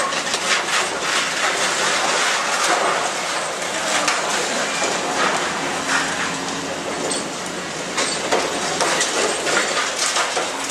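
Caterpillar long-reach demolition excavator breaking up a concrete building: concrete crunching and debris clattering down in a continuous crackle of small impacts, over the steady hum of the excavator's engine.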